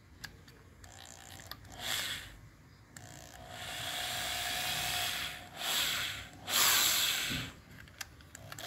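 Power drill/driver running at low speed in short runs, winding resistance wire into a coil. A faint brief run about a second in, a longer steady run with a thin whine from about three seconds, then two short bursts near the end.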